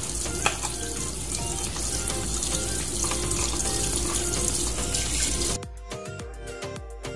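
Tap water running and splashing over a plastic vacuum dust container held under it in a stainless steel sink, stopping about three-quarters of the way through. Background music with a steady plucked beat is left near the end.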